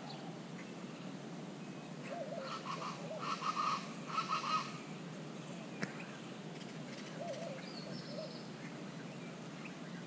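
Plain chachalacas calling in a loud, harsh, repeated chorus for a couple of seconds, with softer cooing from white-winged doves before and after.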